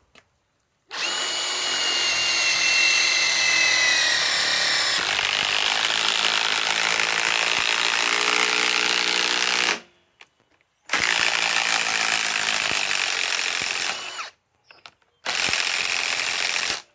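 Ryobi PSBIW25 compact cordless impact wrench hammering a large fastener into wood, its pitch sinking slowly under load. It runs in three trigger pulls: a long one of about nine seconds, then two shorter ones, each separated by a brief stop.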